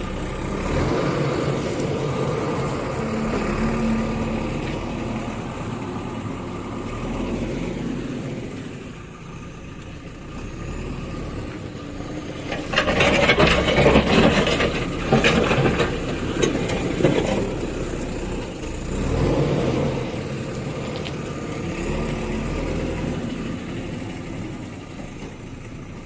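JCB backhoe loader's diesel engine running under load as the front loader bucket pushes soil, rising and falling with the work. It gets louder and harsher for about five seconds in the middle.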